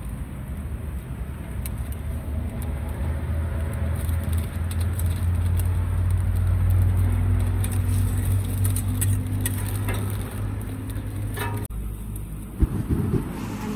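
A motor vehicle passing on the road, its low engine rumble swelling and then fading away. A short knock comes near the end.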